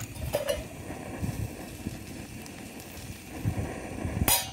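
Wind buffeting the microphone in uneven low rumbles, with a faint click at the start and a short sharp noise about four seconds in.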